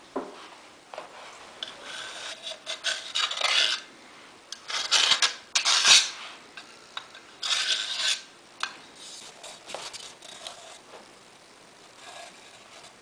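Hands working a new filter mesh over a perforated stainless-steel filter basket and wiping around the basket with a cloth. The sound is irregular bursts of rubbing and scraping, loudest around the middle and fading to lighter rubs near the end.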